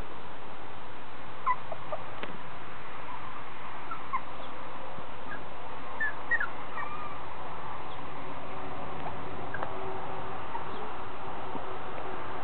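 Five-week-old miniature schnauzer puppies whimpering: scattered short, high squeaks, most of them in the first half, over a steady hiss.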